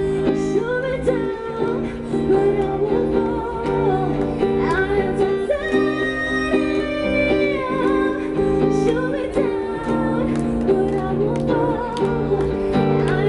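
A woman singing a slow song into a microphone while strumming an acoustic guitar, heard live through the stage sound system.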